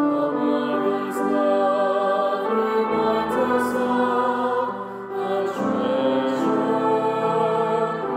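Small mixed choir singing a slow anthem in long held chords, with a brief pause for breath between phrases about five seconds in.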